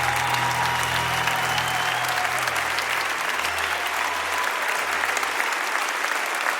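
Audience applauding, with low sustained accompaniment notes fading out about five seconds in.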